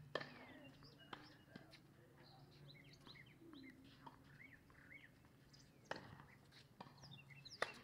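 Tennis ball struck by rackets and bouncing on a hard court: a handful of sharp pops, the loudest just after the start, with others about a second in, near six seconds and near the end. Birds chirp throughout.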